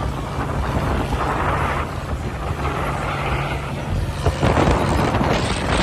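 Vehicle engine running steadily at road speed, a low even hum, with wind rushing over the microphone and swelling twice, about a second in and again near the end.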